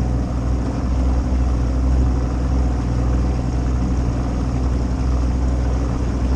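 Jon boat's outboard motor running steadily with a low, even hum as the boat moves slowly under way.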